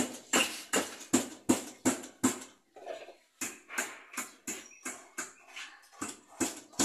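Repeated hammer blows, about two to three a second, with a short pause a little over two seconds in before the striking resumes.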